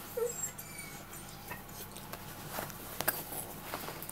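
A dog's claws clicking and pattering on a tiled floor as it moves about, with scattered sharp ticks. There is a short squeak about a quarter second in.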